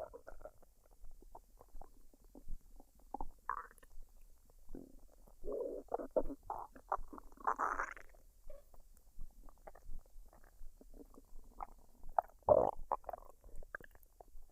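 A woman's stomach gurgling as it digests a recent meal: irregular small pops and gurgles, a longer run of gurgles around the middle, and a louder gurgle near the end.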